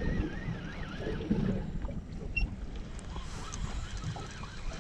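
Wind on the microphone and water around a small fishing boat, a steady low rumble, with a faint wavering whistle in the first second and a few light knocks.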